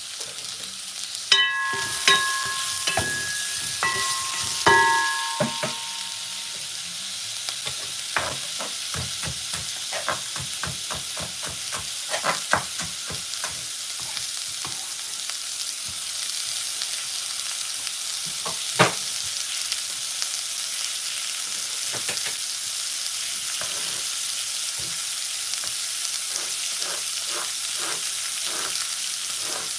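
Sliced onion and carrot strips sizzling steadily in an aluminium pot. A few ringing metal clinks come in the first few seconds as the pot is stirred, and sharp knife taps on a wooden cutting board are scattered through the rest.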